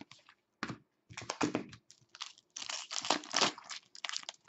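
Foil wrapper of a 2015-16 SP Authentic hockey card pack crinkling in the hands, with the cards rustling and sliding against each other, in a run of irregular rustles that is busiest a little past the middle.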